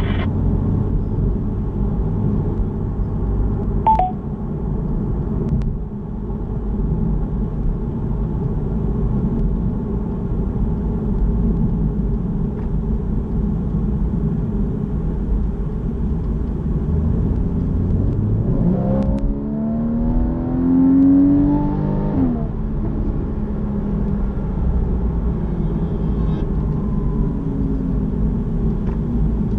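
Car engine and tyre rumble heard from inside the cabin while driving at a steady speed. About 18 seconds in the engine revs up, its pitch rising for a few seconds, then falls away sharply as the driver changes gear.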